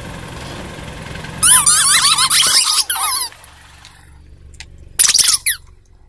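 Rubber duck toys squeaking in quick, rapid runs of rising-and-falling squeaks, one long run in the middle and a shorter one near the end. A low steady hum stops about two and a half seconds in.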